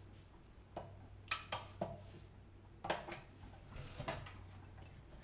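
Irregular light metallic clicks and taps as a hand tool works inside the open crankcase of a Honda-clone small engine, prying at the governor to free it, over a low steady hum.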